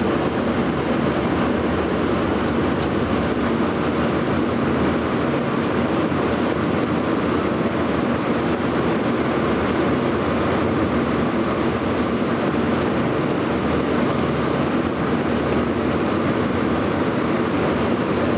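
Electric sewing machine running steadily at speed, without a pause.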